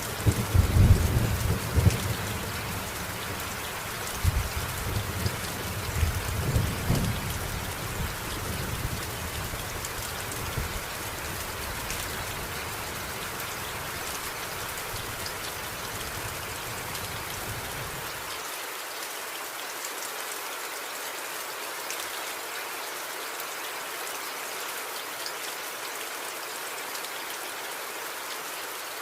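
Steady rain falling, with rolling thunder rumbling through the first several seconds and dying away. About two-thirds of the way in, the deep background rumble cuts off suddenly and only the hiss of the rain remains.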